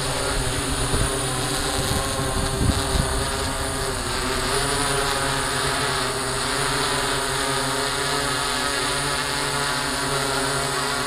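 DJI S800 hexacopter's six electric motors and propellers running steadily, a constant multi-tone propeller buzz. A few low rumbling buffets come through about one to three seconds in.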